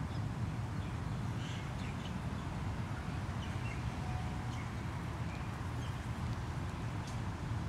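Urban park ambience: a steady low rumble of distant city traffic, with a few faint bird chirps and small ticks scattered over it.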